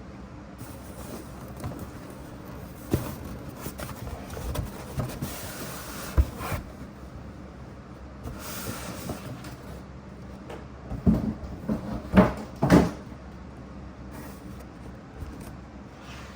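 Cardboard packaging being handled and opened: scattered knocks and taps, with sliding, rustling cardboard twice, and a cluster of louder thumps about eleven to thirteen seconds in.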